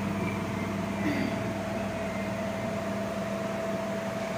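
Steady mechanical hum with a constant low tone and a fainter higher tone, like a machine or fan running, unchanging throughout.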